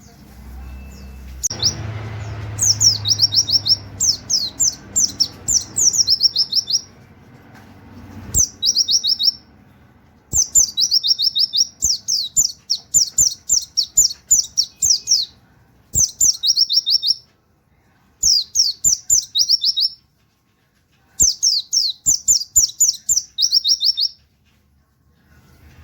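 White-eye (pleci) singing in phrases of rapid, high, downward-slurred 'wit wit' notes in the manner of a canary, several notes a second. The phrases last about one to five seconds each, with short pauses between them.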